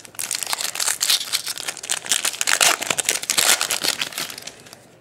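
Foil trading-card pack wrapper crinkling as it is handled and opened: a dense, continuous crackle that fades out about four and a half seconds in.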